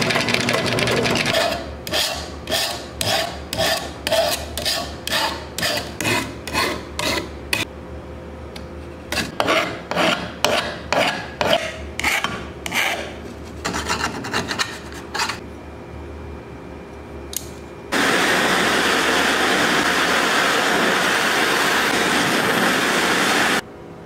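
Hand file rasping over the edge of a copper-pipe knife handle in even back-and-forth strokes, about two a second, with one short pause. Before it a drill press briefly runs, and near the end a steady loud hiss starts and cuts off suddenly.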